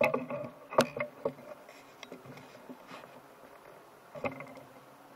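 Handling noise from the camera being set in place: a cluster of sharp knocks and rubs with brief ringing at the start, the loudest just under a second in, and another knock just past four seconds.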